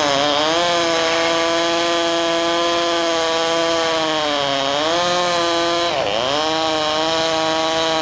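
Chainsaw running at high revs. Its engine note sags in pitch briefly a few times as it takes load in the cut: once near the start, again about four and a half seconds in, and most deeply about six seconds in.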